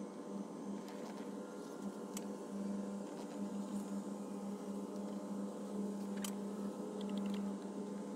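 A steady low mechanical hum, with a few faint light ticks.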